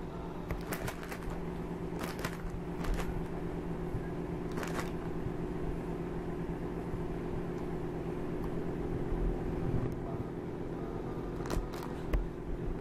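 A steady low mechanical hum with several fixed tones, with a few scattered short clicks and rustles, a small cluster about a second in and another near the end.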